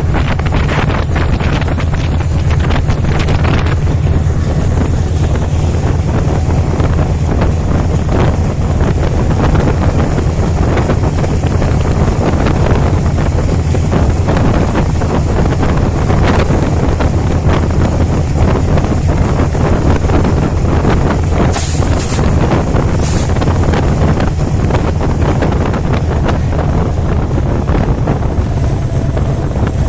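Meter-gauge express train running through the station at speed: a steady, loud rumble of the coaches and wheels on the rails, with wind buffeting the microphone. Two short high squeaks come about two-thirds of the way through.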